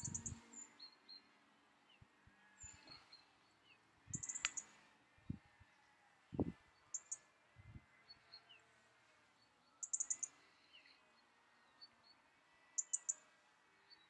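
Birds calling: a short, high burst of several quick notes comes about every three seconds, with fainter chirps and short whistled glides between. A few soft low thumps fall in the first half.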